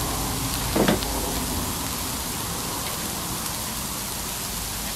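Whiting and salmon sizzling in oil on a hot Blackstone propane griddle: a steady hiss, with one brief louder sound about a second in.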